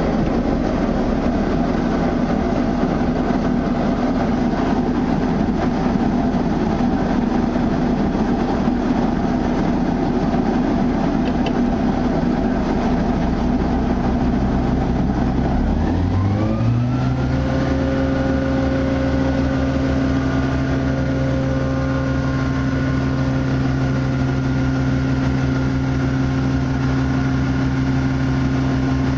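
Caterpillar 3306 straight-six diesel of a vacuum truck running at a low rumbling idle, then brought up to a higher speed about halfway through, with the pitch rising over about a second and then holding steady.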